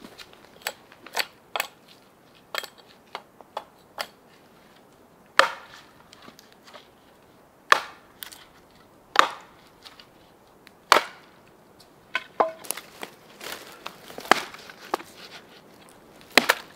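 Axe chopping a thin wooden pole laid across a fallen log: sharp, irregular knocks of the blade biting into the wood. A few strokes are much louder than the rest, and the blows come faster near the end.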